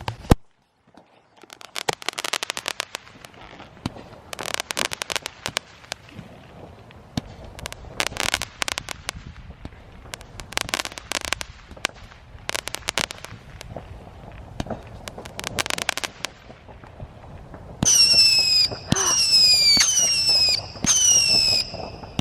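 Consumer fireworks going off: bursts of rapid crackling every couple of seconds. About three-quarters of the way through comes a loud, shrill whistle that falls in pitch and repeats about once a second, typical of a whistling firework.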